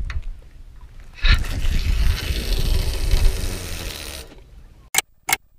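Wind buffeting and clothing rubbing against a body-worn camera's microphone while a spinning rod is handled: a loud rumbling rush that starts about a second in and dies away near the end. Two sharp clicks about a third of a second apart follow.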